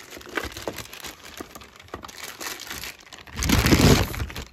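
Clear plastic bag crinkling and rustling as it is pulled open by hand, with a louder rustle close to the microphone for most of a second near the end.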